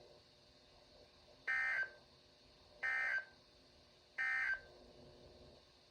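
Emergency Alert System end-of-message data bursts on NOAA Weather Radio: three short bursts of digital tones about 1.3 seconds apart, signalling the end of the warning message.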